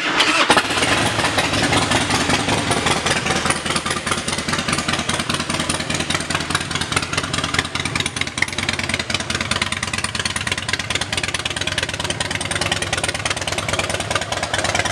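Harley-Davidson 88 cubic inch fuel-injected V-twin firing up abruptly and then idling steadily with a fast, even run of exhaust pulses through aftermarket Python pipes.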